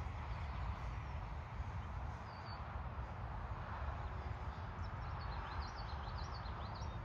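Wind buffeting the microphone in a steady low rumble, with small birds chirping briefly once and then in a quick run near the end.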